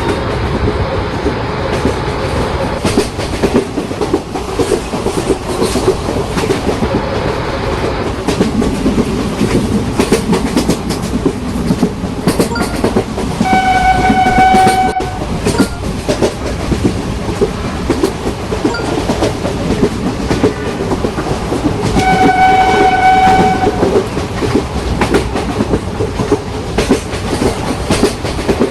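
Indian Railways electric train running past at speed, its wheels clattering steadily over the rail joints. A horn sounds twice, each blast one steady note lasting about a second and a half, the first about 13 seconds in and the second about 22 seconds in.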